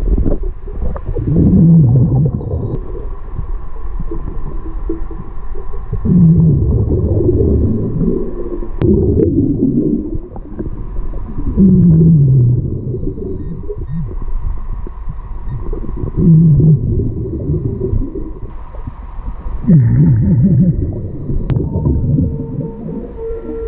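Hookah diver breathing underwater through a scuba regulator: a gurgling rush of exhaled bubbles with falling pitch about every 3 to 5 seconds, five or six breaths in all, recorded underwater.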